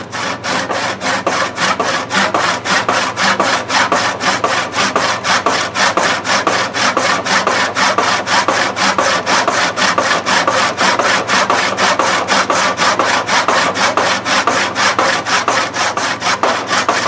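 Old handsaw cutting into a hickory hammer handle with fast, even strokes, about five a second.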